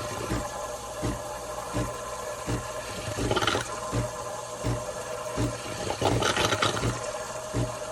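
MAttinata Mattino Ultra espresso machine running, its pump humming steadily and pulsing at a regular beat of a little more than one a second, with two short hissing sputters, one midway and one about six seconds in.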